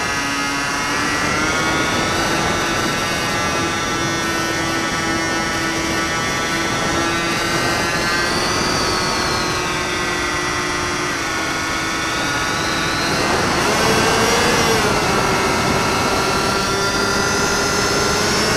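E-flite Delta Ray's electric motor and pusher propeller whining steadily in flight, heard on board with wind rushing over the microphone. The pitch dips slightly about eleven seconds in, then rises higher a couple of seconds later.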